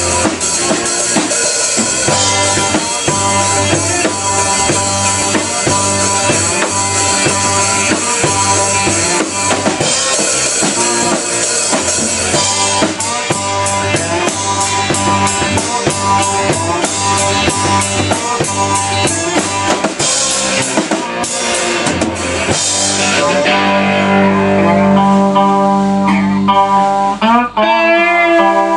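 Blues band playing an instrumental passage: drum kit, electric bass, electric guitar and a slide-played handmade disc-brake guitar. About 23 seconds in the drums drop out, leaving the guitars, with sliding notes near the end.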